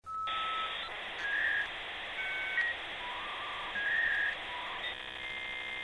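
Channel intro jingle: a few short, whistle-like held notes stepping up and down in pitch over a steady hiss, changing near the end to a buzzy held tone.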